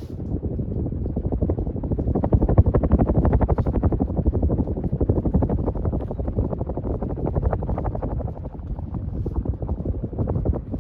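Air from a 1988 Hunter Original ceiling fan running on high speed, buffeting the microphone as an uneven rushing flutter that rises and falls.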